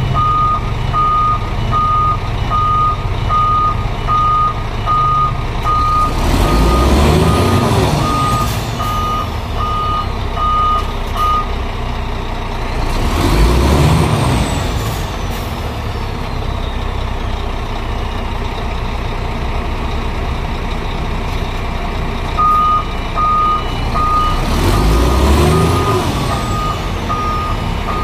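Scania P410 dump truck's engine running and revved hard three times as it strains to pull away on mud while its rear wheels brake themselves. Each rev is followed by a falling whistle. The cab's inner-wheel (differential lock) alarm beeps steadily through the first part and starts again near the end.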